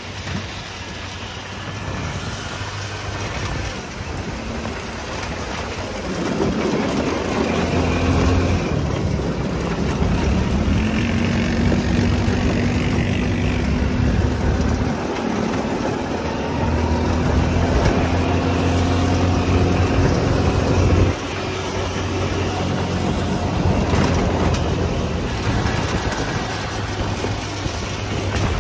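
Off-road buggy's engine running as it drives, its pitch climbing slowly from about six seconds in as it gathers speed, then falling away suddenly at about twenty-one seconds as the throttle comes off.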